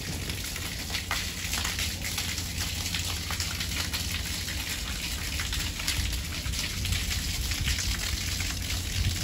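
Water pouring from a discharge outlet in a lake freighter's hull and splashing into the lock below, a steady splashing hiss over a low rumble.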